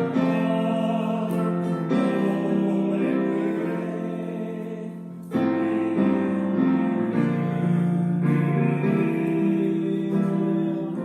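Hymn music: held keyboard chords that change every few seconds, with singing.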